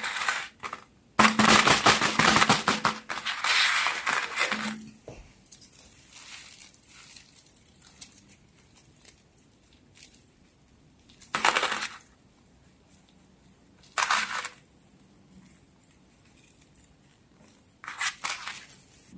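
Hands handling and squeezing squishy fidget-toy keychains on a paper-covered tabletop, giving rustling and scraping handling noise. A dense stretch starts about a second in and lasts a few seconds, followed by three short bursts later on.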